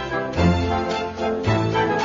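Background music with a steady beat and a bass line that changes note about once a second.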